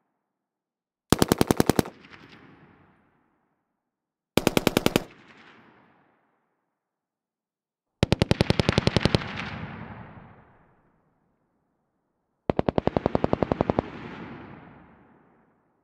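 FN FAL 7.62×51mm NATO battle rifle firing four short fully automatic bursts, each followed by a fading echo. The last two bursts carry a longer rolling echo, the last one heard from a microphone about 150 m away.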